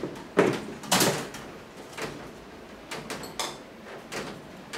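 Clicks and clatter of an electric fan's guard being unclipped and lifted off by hand: two sharp knocks in the first second, then lighter scattered clicks.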